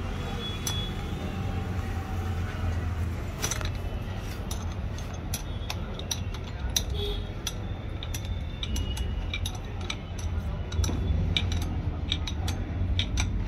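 Irregular metallic clinks and taps of steel tools as a flywheel puller is worked onto a Yamaha R15's magneto rotor with a spanner and bar, over a steady low hum.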